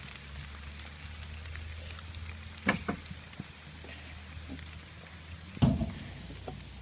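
Steady rain falling, over a low steady hum, with two sharp knocks about three and six seconds in; the second knock is the louder.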